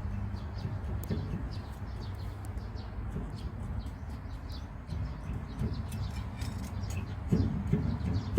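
Small birds chirping over and over, several short chirps a second, over a low steady rumble.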